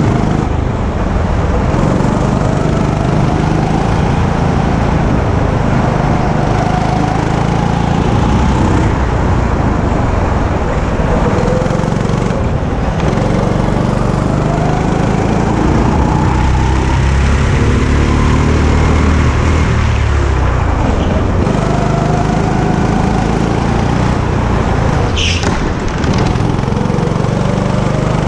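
Go-kart engine running under the driver, its pitch rising again and again as the kart accelerates out of corners and dropping as it slows for the next. A brief high squeak near the end.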